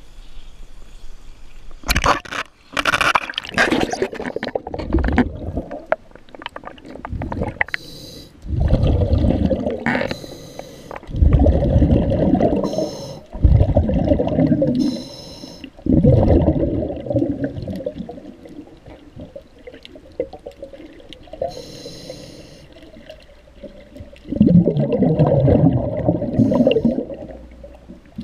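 Splashing as the camera goes into the water, then muffled underwater sound of a scuba diver's breathing: bursts of bubbling from the regulator's exhalations, each a couple of seconds long, every few seconds.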